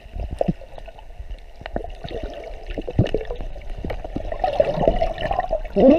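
Water gurgling and washing around an underwater action camera as it moves, with scattered sharp knocks. In the second half, wavering muffled tones come through the water.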